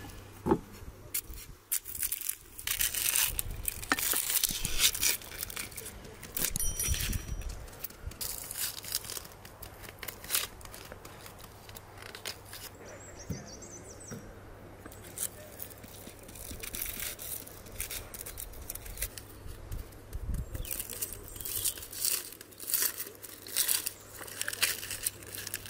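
Hand-work sounds of food preparation: a small bowl scooping and scraping through flour in a clay pot, then, in the second half, dry onion skin crackling and tearing in short bursts as an onion is peeled by hand.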